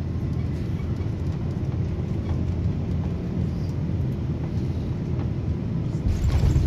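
Steady low rumble of an airliner cabin: jet engine and airflow noise heard from a passenger seat. About six seconds in, the noise swells louder and fuller.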